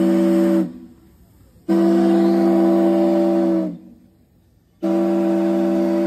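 Steam whistle blown by pulling its cord, sounding a chord of several steady tones in separate blasts. One blast cuts off just after the start, a second lasts about two seconds, and a third begins near the five-second mark.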